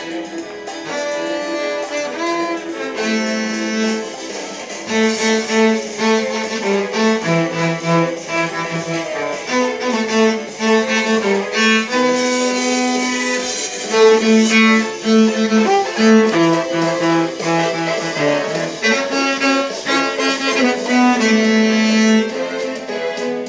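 Instrumental music led by bowed strings, violin and cello, playing a melody of short, quickly changing notes.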